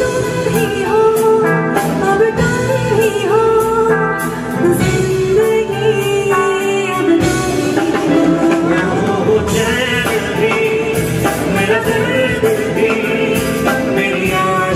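Live singing of a Hindi song into handheld microphones, over musical accompaniment.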